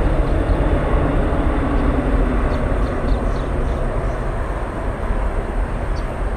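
Jet airliner engines roaring, a deep steady rumble slowly fading over a few seconds as the aircraft moves away.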